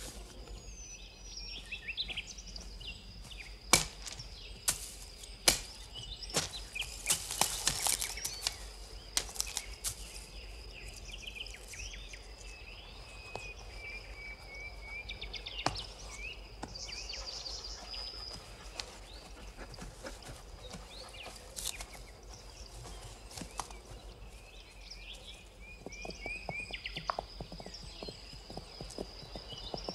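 Birch branches snapping and leaves rustling as someone climbs the tree, with sharp cracks about four and five and a half seconds in and a thick rustle of foliage soon after. Birds sing short chirps and trills over a steady high tone throughout. In the last few seconds horses' hoofbeats come in at a steady pace.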